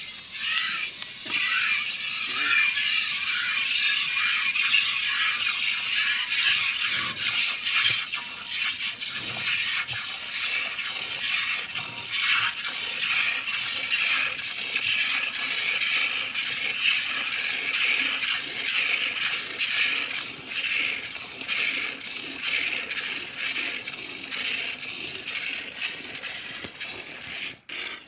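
Milk squirting in quick rhythmic jets into an aluminium pot as a water buffalo is milked by hand, a steady hissing, rattling patter.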